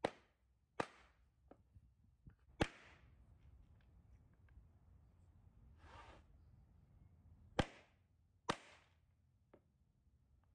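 Claw hammer driving steel T-nuts into pre-drilled plywood: five sharp blows, two close together at the start, one alone about two and a half seconds in, and two close together near the end, with faint taps between.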